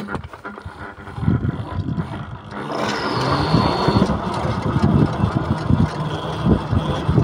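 Electric bike with a QS138 70H mid-drive hub motor pulling away under throttle, a faint high electric whine coming in as it gathers speed, over rising road and wind noise with low wind rumble on the microphone.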